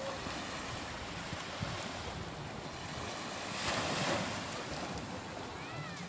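Beach surf and wind: a steady rush of waves washing on the shore with wind on the microphone, swelling a little about two-thirds of the way through.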